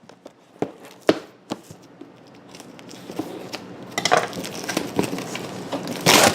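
Hands handling a cardboard board-game box and its contents: a few light knocks, then rustling and crinkling of packaging from about four seconds in, loudest near the end.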